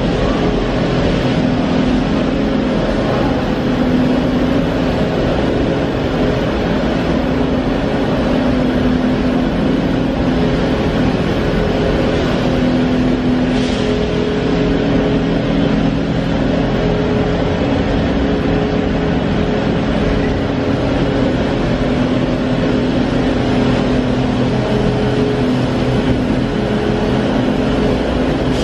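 Steady, loud drone of running industrial machinery, with a low hum and a higher tone that fade in and out over a broad rushing noise.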